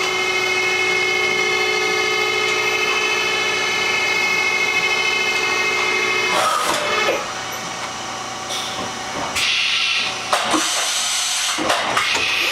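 Makino S33 vertical machining center running its axis moves, with a steady machine whine of several tones. The whine changes and falls quieter after about six seconds. A burst of hiss follows around ten seconds in, and a few sharp clicks come near the end.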